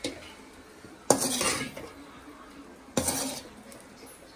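A metal spatula scraping and knocking against a large metal kadai as fried rice is tossed and mixed. There are two sharp clanks, about a second in and about three seconds in, each followed by a short scrape of rice and spatula across the pan.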